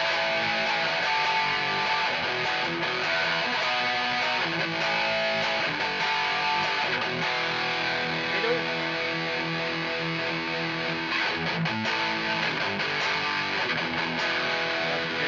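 High-gain distorted electric guitar playing metal riffs on an active neck pickup through a Peavey 6505 Piranha amp and small 1x8 cabinet.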